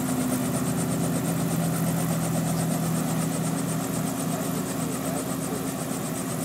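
Helicopter on the ground with its engine running and rotor turning: a steady pitched whine with a rapid, even beat of the blades, easing slightly in level near the end.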